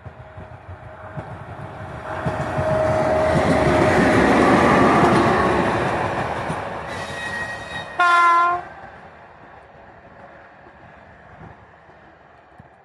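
EP1P electric locomotive running light past, the noise of its wheels on the rails swelling and fading away. About eight seconds in it gives one short horn blast.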